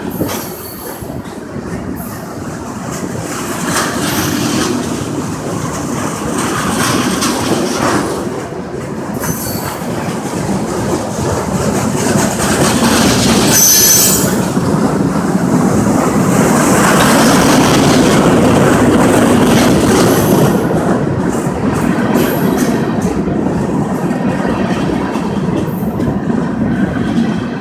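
Freight cars of a long CSX train rolling slowly past at close range: a steady rumble of steel wheels on rail with scattered clicks and a brief high wheel squeal about halfway through. The sound is loudest in the middle.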